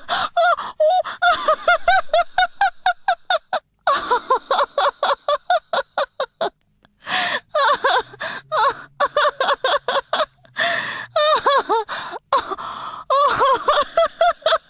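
A young woman laughing hard in fast, repeated bursts of pitched "ha" sounds, with brief breaks for breath about four seconds in and again around seven seconds in.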